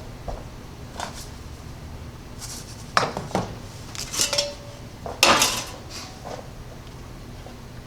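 Metal sample pans clattering and knocking as they are handled, in a handful of separate clatters, the loudest a little past five seconds in.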